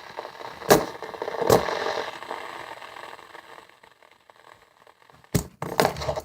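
Fidget spinner flicked twice in quick succession, then its bearing whirring steadily and slowly dying away; a few more clicks of handling near the end.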